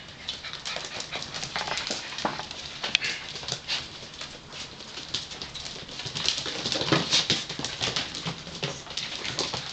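Gordon Setter puppies at play: a steady scuffle of fabric rustling and many quick clicks and scratches as they wrestle and tug on a fleece blanket over a tiled floor.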